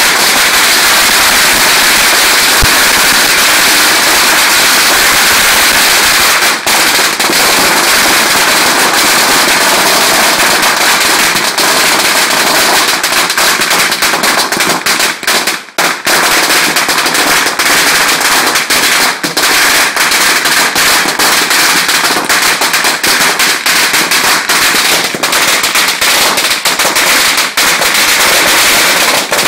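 Long strings of Chinese firecrackers going off in a loud, continuous rapid crackle of bangs, with a brief lull about sixteen seconds in before the string carries on.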